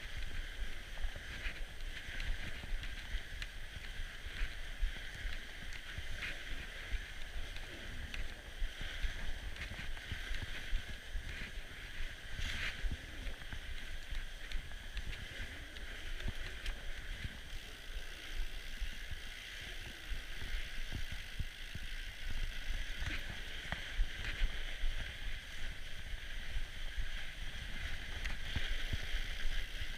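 Norco Bigfoot fat bike riding over packed-snow singletrack: steady tyre noise on the snow with scattered small crackles and clicks, over a constant low rumble.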